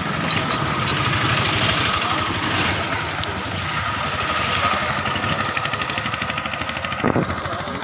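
A motorcycle engine running at idle, with a short thump near the end.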